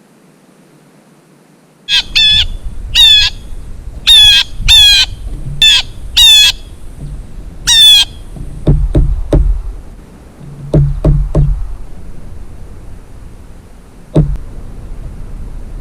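A bird giving about eight loud, harsh calls with a wavering pitch, starting about two seconds in, followed by low rumbling and a few sharp thumps.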